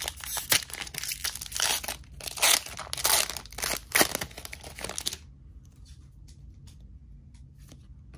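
A Disney Lorcana booster pack's foil wrapper is torn open and crinkled by hand, a dense run of crackling and tearing. It stops about five seconds in, and after that there are only faint light ticks.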